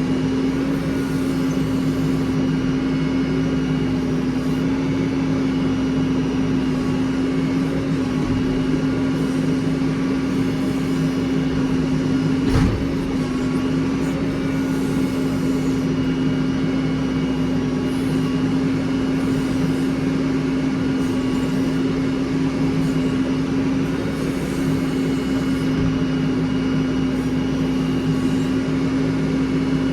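Heavy machine engine running at a steady speed, with one sharp knock about twelve seconds in.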